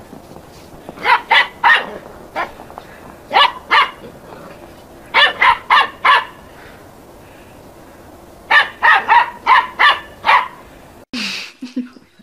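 Small dog barking in quick runs of sharp yaps, two to six at a time, with pauses of a second or two between runs.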